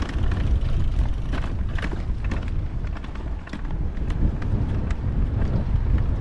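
Wind rumbling on the microphone of a moving e-bike, with frequent short clicks and rattles as the bike rides over a rough single-track dirt path.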